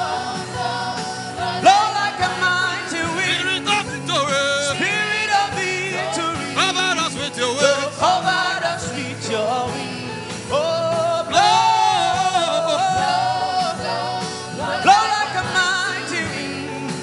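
Gospel worship music: a voice singing long, wavering, wordless phrases over a band with a steady beat.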